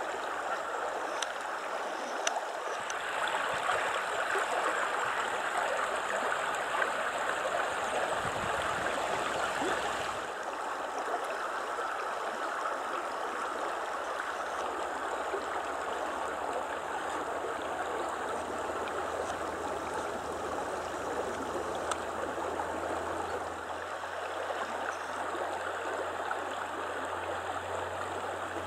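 Clear mountain stream running over stones: a steady rush of flowing water. It gets a little louder a few seconds in and eases again about ten seconds in.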